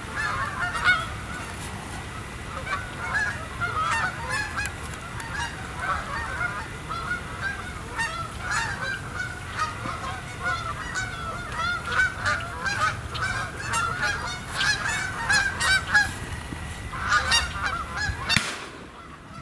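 A flock of Canada geese honking, many short calls overlapping one another without a break, over a steady low rumble. The calling eases off in the last second.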